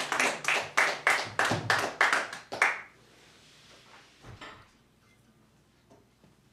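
The end of a live acoustic guitar song: sharp percussive strokes, about four a second, that stop abruptly nearly three seconds in. Then the room is quiet, with one soft knock a little over four seconds in.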